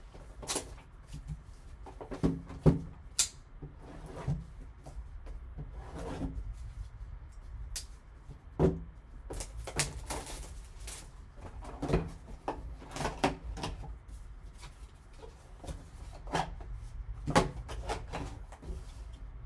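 Hands opening a trading-card box and handling its contents: irregular rustling and scraping, with scattered sharp clicks and taps.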